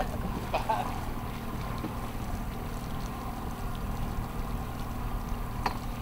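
A boat's motor running steadily with a low hum. There is a single short knock near the end.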